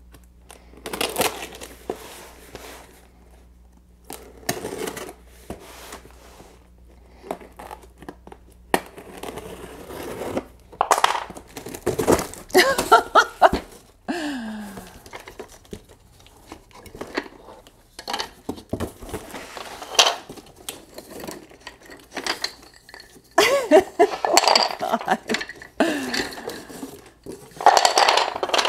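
Unpacking a cardboard box by hand: cardboard flaps and packing being torn and rustled open, with plastic parts bags crinkling and thin wooden slats clicking and clattering as they are lifted out onto a wooden floor. The handling comes in irregular bursts with sharp knocks in between.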